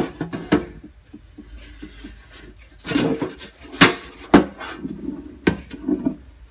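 Small sheet-metal toolbox being handled while working its lid loose: the lid and hinge clank and rattle, with a handful of sharp knocks and some rubbing in between.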